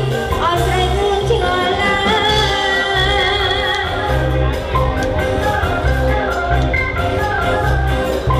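Music with a singing voice over a heavy bass line.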